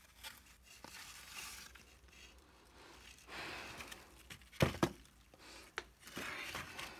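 Cardboard egg-crate flats rustling and scraping as they are handled and shifted, with a few sharp knocks about two-thirds of the way through, the loudest of them near the middle.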